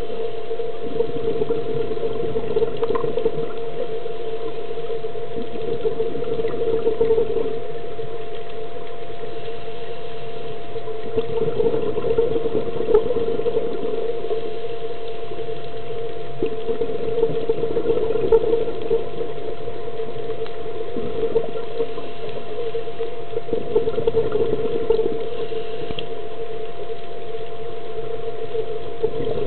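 Underwater sound through a dive camera's housing: a steady drone with a constant hum-like tone, swelling briefly every few seconds.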